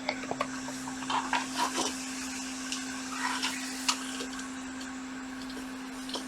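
A few light clicks and taps of parts and tools being handled on a workbench, most of them in the first four seconds, over a steady low electrical hum.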